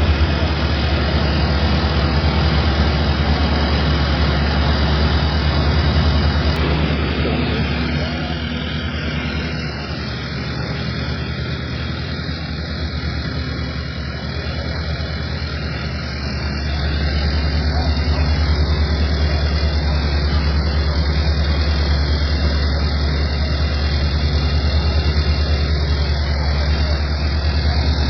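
Vehicle running with a steady low rumble that drops back in level for several seconds in the middle, then comes back up.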